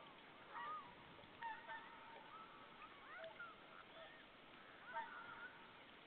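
Faint calls of several whooper swans: short honking calls, one or two a second, at differing pitches and overlapping.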